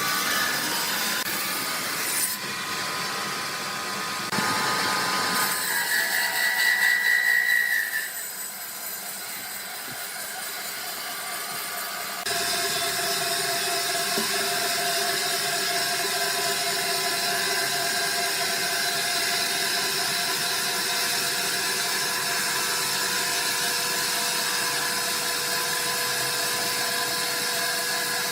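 Sawmill machinery running, with steady mechanical whines and hums. The sound changes abruptly several times. A high whine lasts a couple of seconds near the middle, and a louder, even machine hum holds through the second half.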